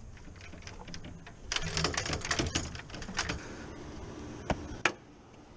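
A quick run of light clicks and rattles, then two sharp knocks close together near the end.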